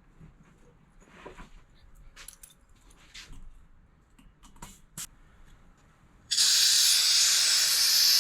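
A few faint clicks and handling sounds, then about six seconds in a loud, steady hiss starts suddenly: air rushing out through the valve of a 4x4's 265/75/16 tyre as it is let down from 55 psi.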